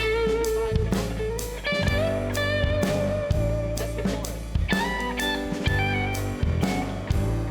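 Live rock band in an instrumental break: an electric guitar plays a lead line of held, bending notes over bass guitar and a drum kit keeping a steady beat.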